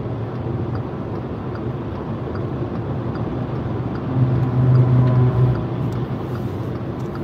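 Steady road noise inside a car cabin at motorway speed: a low rumble of tyres and engine. A droning hum swells louder for a second or so a little past the middle, then settles back.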